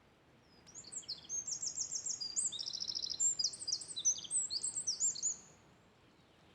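A small songbird singing one long, fast song of high trills and chirps lasting about five seconds, over a faint background hiss.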